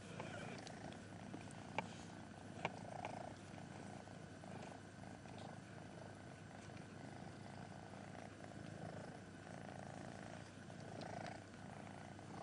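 A mother cat purring steadily while giving birth, with two sharp clicks about two and three seconds in.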